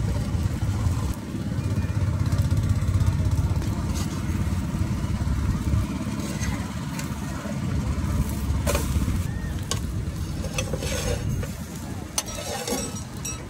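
Omelette frying in a large iron pan on a gas stove, with a metal spatula scraping and tapping against the pan and sliding under the omelette to fold it near the end. A heavy low rumble lies under it and eases after about eight seconds.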